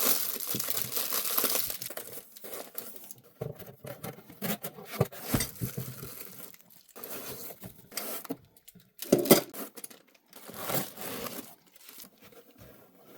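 Packaging being opened by hand: a long tearing sound over the first two seconds, then intermittent crinkling and rustling of plastic wrap and cardboard as the contents are handled.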